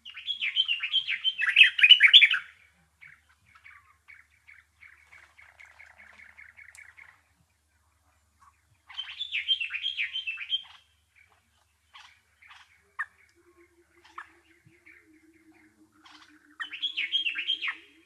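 Small songbird singing: three loud bursts of rapid chattering, warbling notes a few seconds apart, with softer quick twittering between them.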